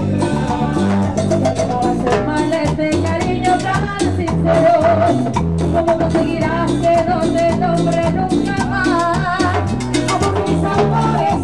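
Live Peruvian cumbia band playing at full volume, with percussion and bass keeping a steady dance beat and women singing a wavering lead melody over it.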